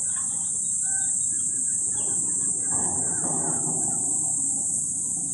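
Steady high-pitched chorus of insects shrilling without a break, over a softer low rumbling noise that swells about three seconds in.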